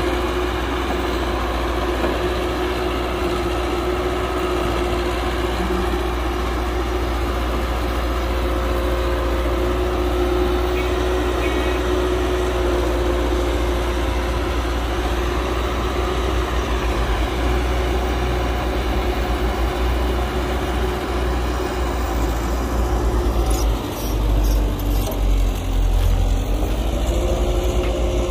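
Heavy diesel engine running steadily. Past three-quarters of the way through, its pitch sags and recovers, as under a brief load, while the low rumble turns uneven.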